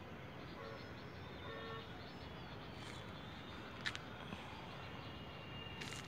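Faint outdoor ambience: a steady hum of distant traffic with a few short bird chirps. There are two sharp clicks, one about four seconds in and another near the end.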